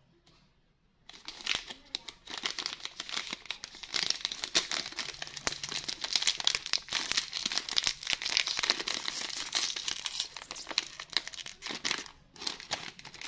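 Foil-lined plastic snack packet crinkling and tearing as it is pulled open by hand. The dense crackle starts about a second in and breaks off briefly near the end.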